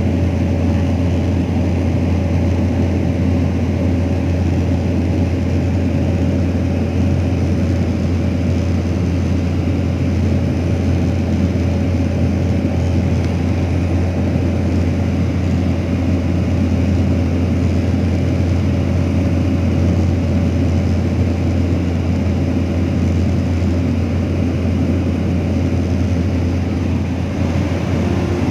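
Loud, steady drone of a small propeller plane's engine and propeller, heard from inside the cabin in flight, with a deep hum running evenly throughout.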